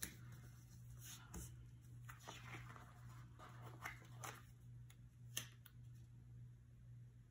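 Faint rustling of paper sticker sheets and light taps as paper stickers are peeled off and pressed onto a planner page, with one sharper tick about five seconds in.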